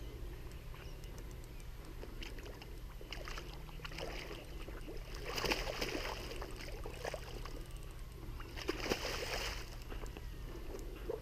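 A hooked carp thrashing at the surface in shallow water, splashing twice: about halfway through and again near the end.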